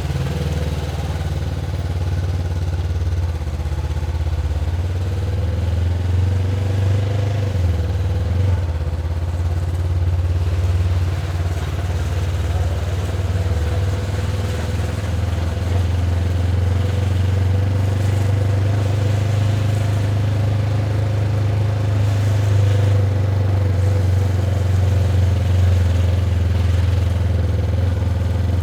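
Honda CB500X's parallel-twin engine running steadily through its stock exhaust, at an even pitch with no revving.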